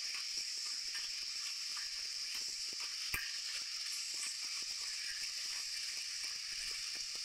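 Spatula stirring thick pumpkin halwa in a non-stick pan: faint scattered scrapes and taps against the pan, with one sharper tap about three seconds in, over a steady high-pitched hiss.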